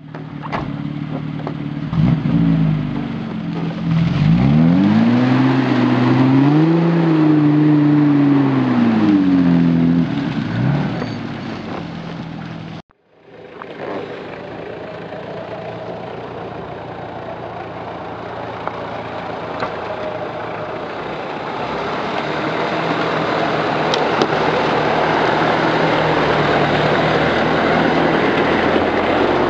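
Off-road 4x4 SUV engine revving up and down as it drives through deep mud. After a cut, flowing water in a shallow stream, with a 4x4's engine and splashing growing louder as it drives down the creek bed and passes close by near the end.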